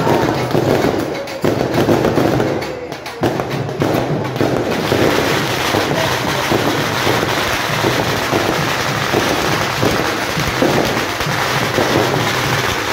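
Firecrackers crackling in a long, dense, unbroken run of rapid pops.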